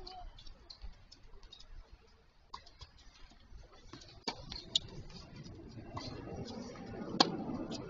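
Tennis balls bouncing and being struck on an outdoor hard court: scattered light ticks, a sharper crack about four seconds in, and one loud, sharp racket-on-ball crack about seven seconds in.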